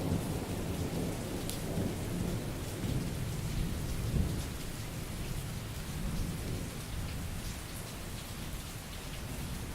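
Steady rain falling, with scattered drop ticks, under a low rolling rumble of thunder that is heaviest in the first few seconds and eases off after about five seconds.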